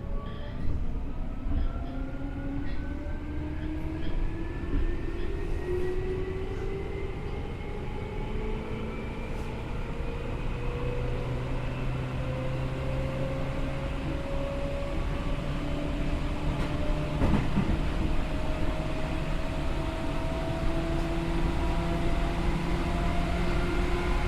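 Seibu New 2000 series electric train accelerating, heard from inside the car: the traction motors and gears whine in several tones that rise steadily in pitch over the rumble of wheels on rail.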